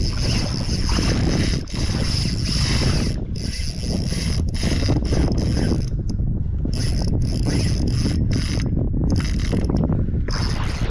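Fishing reel whirring as line is cranked in against a hard-pulling hooked fish, the winding stopping briefly several times. A steady low rumble runs underneath.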